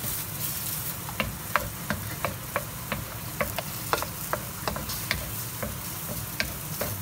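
Eggs and ground beef sizzling in a stainless steel wok while a wooden spatula scrambles the eggs, knocking and scraping against the pan about two or three times a second.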